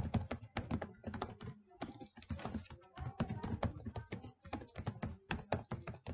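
Typing on a computer keyboard: a quick, irregular run of keystrokes, several a second.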